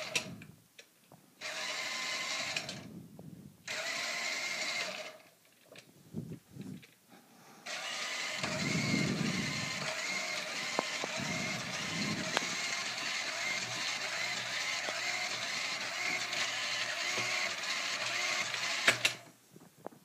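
Small electric drive motors of a tracked robot running, started and stopped in several short bursts, then running for about eleven seconds before cutting off suddenly.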